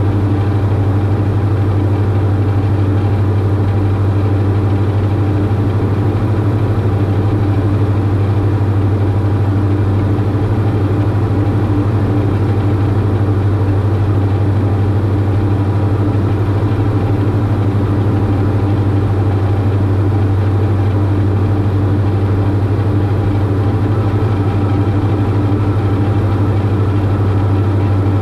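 Cabin drone of a Diamond DA42-VI's twin Austro AE300 turbo-diesel engines and propellers in steady cruise power, a constant low hum with steady tones above it.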